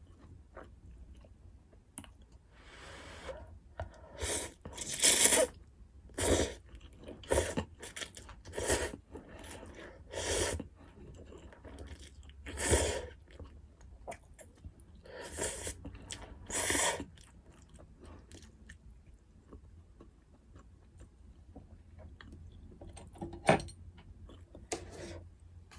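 Close-miked eating sounds: chewing and crunching of food in a series of loud, short bursts through the first two-thirds, then quieter chewing with one sharp click near the end.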